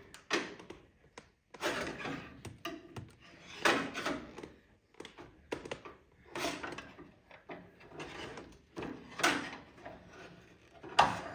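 A paintless dent repair rod scraping and knocking against the inside of a 1970 Chevelle SS fender, in irregular strokes about once a second.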